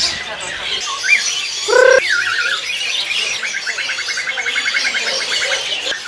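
Many caged songbirds calling and singing together. A loud harsh call comes just under two seconds in, followed by wavering whistles, and then a rapid even trill of about nine notes a second runs from about halfway through almost to the end.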